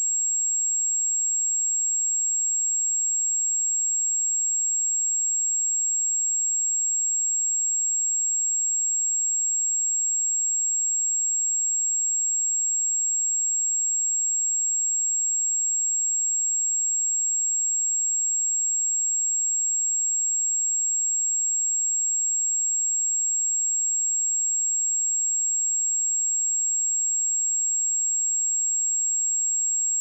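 A single pure sine-wave test tone at 7595 Hz, a steady high-pitched whistle held at one constant pitch and level throughout.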